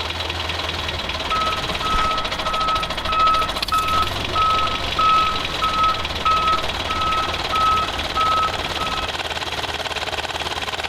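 A vehicle's reversing alarm beeping evenly, about three beeps every two seconds, over a steadily running engine. The beeping starts about a second in and stops near the end.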